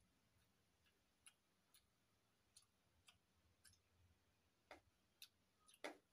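Quiet eating sounds of rice and vegetables being eaten by hand: scattered soft clicks and smacks at irregular intervals, the loudest two close together shortly before the end.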